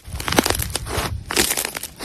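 Slime being squeezed and worked by hand, with a dense run of sharp crackling, popping snaps and a brief lull about a second in.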